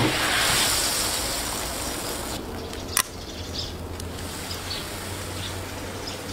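Broth streaming and splashing as fish slices are scooped out of a boiling wok with a slotted metal skimmer, fading after about two seconds. A single sharp clink about three seconds in, then faint dripping and scraping.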